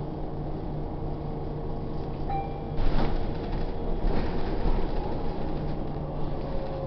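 Inside a New Flyer low-floor city bus under way: the steady low drone of the engine and road noise. A louder knock about three seconds in and a noisier stretch about a second later, as the bus body jolts.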